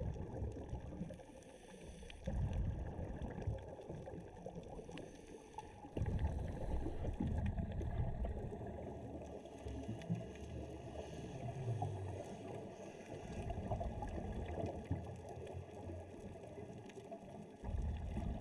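Rushing, gurgling water noise with louder low rumbling surges every few seconds.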